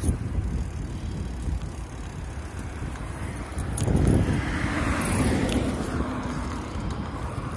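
Wind rumbling on the microphone and tyre noise from a bicycle ridden along a paved path beside a road, with a louder rush about four seconds in as a car goes by.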